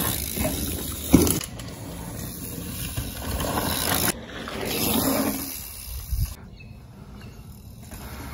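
Mountain bike tyres rolling and skidding over dirt and dry leaves on dirt jumps, with a sharp thud about a second in from a landing. The noise swells again around five seconds in, then settles quieter.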